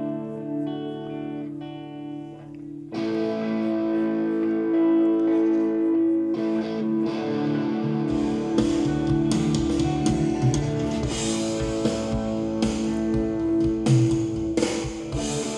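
Guitar-led band music played back from recorded multitrack through a digital mixer. A fuller sound comes in about three seconds in, and drums and bass join at about eight seconds.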